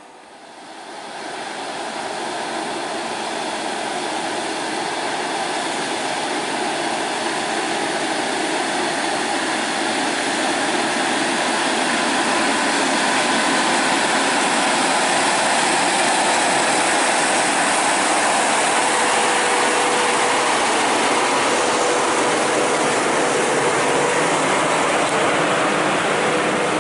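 Loaded Scania heavy truck's diesel engine working hard on a steep climb. It grows louder over the first two seconds as it comes closer, then runs loud and steady, with a faint steady whine from about halfway through.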